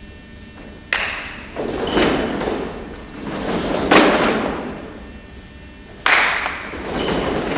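A group of fencers' feet stamping and shuffling on the sports-hall floor together during a footwork drill, in several surges that start suddenly, the loudest about four seconds in.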